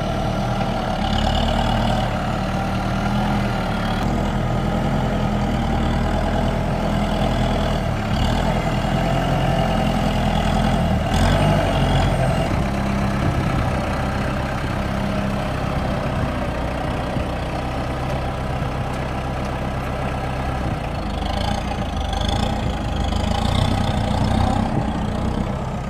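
Kubota tractor's diesel engine running steadily as the backhoe is worked, its engine note shifting a couple of times around the middle.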